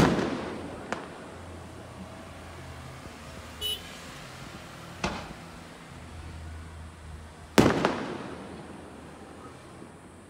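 Aerial firework shells bursting: a loud boom at the start and another about seven and a half seconds in, each echoing away, with smaller bangs about a second and about five seconds in and a brief crackle between them.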